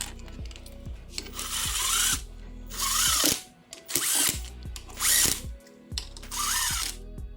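Cordless power drill/driver run in five short bursts, its motor pitch rising and falling each time, driving in fasteners on a Kawasaki 650 two-stroke jet-ski engine.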